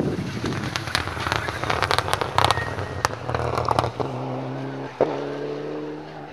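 Mitsubishi Lancer Evolution rally car passing close at speed, its engine note broken by a rapid series of sharp exhaust pops and bangs. After about four seconds a more distant rally car's engine holds a steady note, with one sharp crack a second later, then fades.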